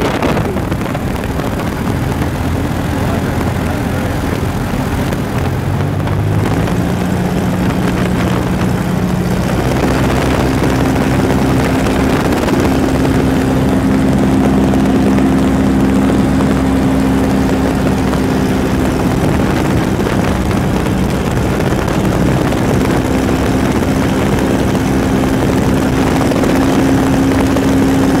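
Light high-wing airplane's engine and propeller running in flight, heard from the cabin with the door and window open, so heavy wind noise rushes over the microphone. The engine note rises about six to ten seconds in, then holds steady.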